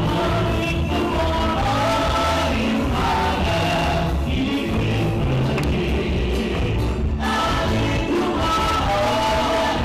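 Live gospel worship music in a church: singing over a band with a heavy, steady bass line. The recording sounds weird.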